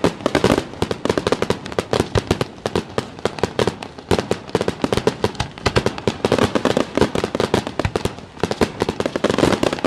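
Fireworks display going off in a dense, rapid barrage of bangs and crackles, echoing off the surrounding hills.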